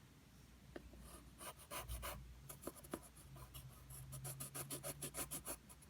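A drawing tool scratching across paper as lines are traced along a paper guide: faint, short strokes starting about a second in, coming quicker and more regularly in the second half.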